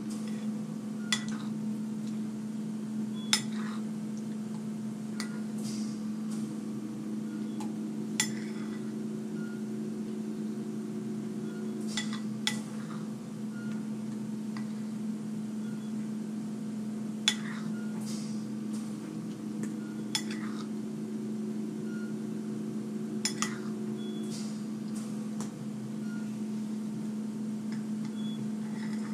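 Metal spoon clinking against a ceramic bowl as ice cream is spooned up, sharp clinks every second or few, over a steady low hum.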